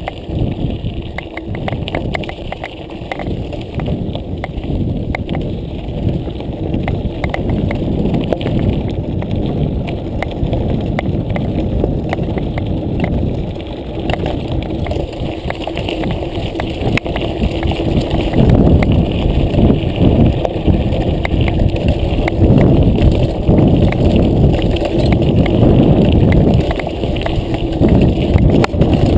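Mountain bike rolling fast over a dry gravel track: a continuous rumble of tyres on loose stones with a dense rattle and knocking over the bumps, louder in the last third.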